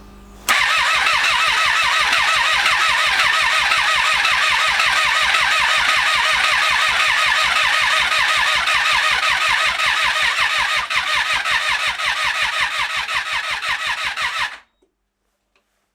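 Starter motor cranking the 2012 Triumph Street Triple 675R's 675 cc three-cylinder engine in one long, even churn of about fourteen seconds, turning it over without it firing, then stopping suddenly. The pulses grow choppier in the last few seconds.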